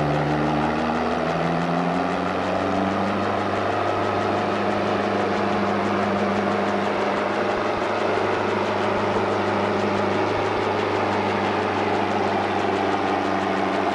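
Farm stock tractor engine under load, pulling a weight-transfer sled down a dirt track. The engine note climbs over the first couple of seconds, then holds steady.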